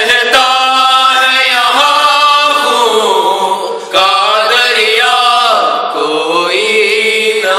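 Male voices reciting an Urdu noha, a Muharram lament, unaccompanied, in long drawn-out melodic lines, with a brief sharp click about four seconds in.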